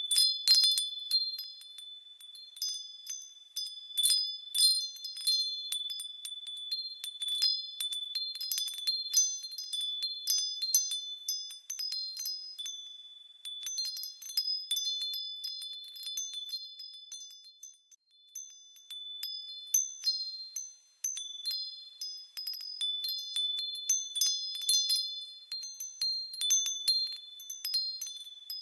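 Wind chimes tinkling: many irregular, overlapping high-pitched strikes that ring on, one clear tone sounding through most of it.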